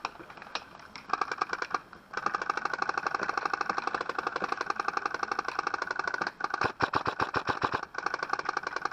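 Airsoft gun firing on full auto: long bursts of rapid, even clicks with a short break about two seconds in, then choppier bursts near the end.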